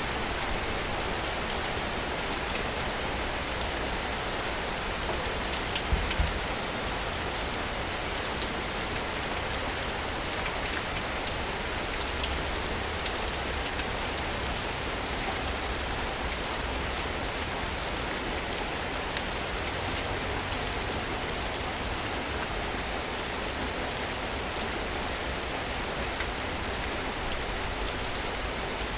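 Steady rain falling, with scattered sharp drop hits throughout and a brief low thump about six seconds in.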